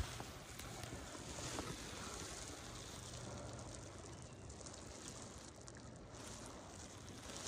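Faint steady rushing of flowing river water, with a soft knock right at the start.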